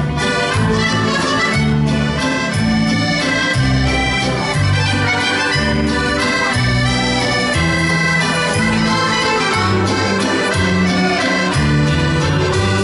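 Three accordions playing a tune together live, chords over a bass line that changes note about every half second to second.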